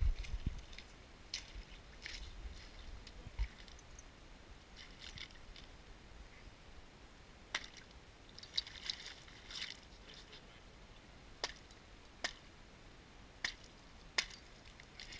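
Scattered sharp clicks and short scuffing rustles, with a few dull bumps in the first few seconds: hands working at a landed salmon on shell-strewn mud.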